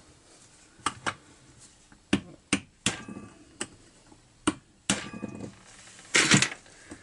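Light, uneven hammer taps on a steel socket set on a seized chainsaw muffler screw, about eight metallic clinks, some with a brief ring. The tapping is meant to break loose the heated, thread-locked screw. Near the end there is a louder scraping sound.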